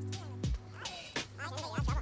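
Hip hop background music: a deep bass beat with falling kick hits and a vocal line over it.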